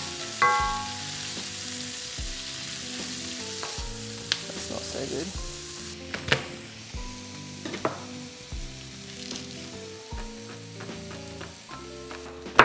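Diced onion and cashews sizzling in hot oil in a cast iron pan, stirred with a wooden spoon. A few sharp knocks of a knife on a wooden chopping board come in later on.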